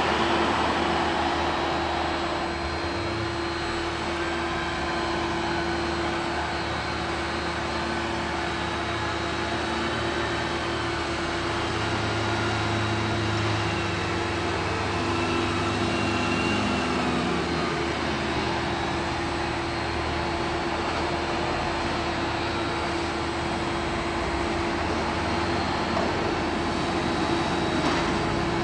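Diesel engines of several farm tractors running steadily as they drive over a silage clamp to compact the chopped grass. The drone stays constant while some engine notes rise and fall partway through.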